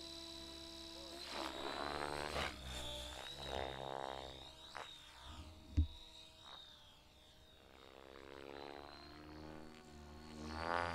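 Radio-controlled 3D aerobatic helicopter flying a freestyle routine overhead. Its rotor sound rises and falls in pitch as it manoeuvres, over a steady high whine, with a single thump about six seconds in.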